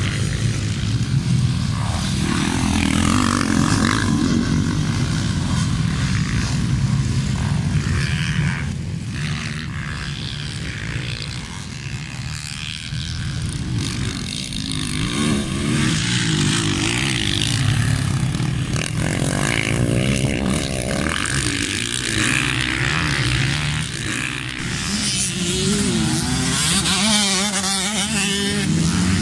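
Motocross dirt bike engines running and revving as the bikes race round a dirt track, the pitch rising and falling through the gears and over jumps, with the wavering revs clearest near the end.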